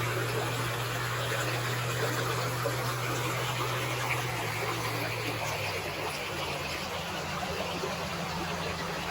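Flowing water making a steady rushing noise, with a low engine hum from nearby road traffic underneath that shifts in pitch about five and a half seconds in.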